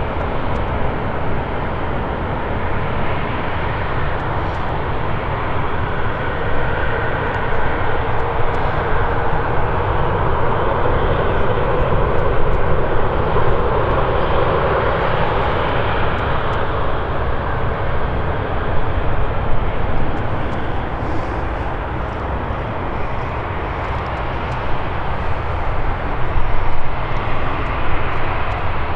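Jet airliner engines running, a steady rush that swells to its loudest about halfway through and then eases off, over a constant low rumble.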